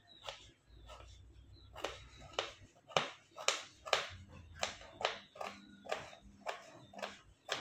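Kitchen knife chopping a vegetable on a plastic cutting board. After a short pause near the start, sharp taps come steadily about twice a second.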